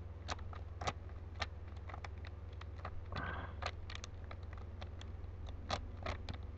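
Rubik's Cube layers being twisted in quick succession, a run of irregular plastic clicks and clacks with a brief scrape about three seconds in, over a steady low hum.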